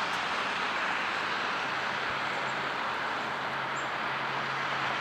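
Steady outdoor background noise, an even hiss with a faint low hum, unchanging throughout.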